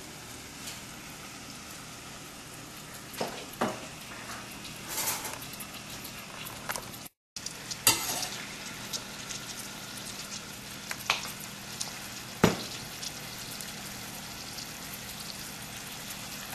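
Diced potato, carrot, peas and corn sizzling in oil in a stainless steel pot. A metal ladle scrapes and knocks against the pot now and then as they are stirred. The sound cuts out briefly about seven seconds in.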